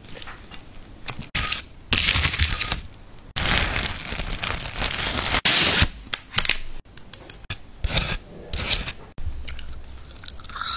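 Packaging crinkled and torn close to the microphone: the plastic film around frozen green jello and a paper sleeve on wooden chopsticks. It comes as a run of rustling bursts, the longest and loudest a few seconds in, then shorter crackles and clicks.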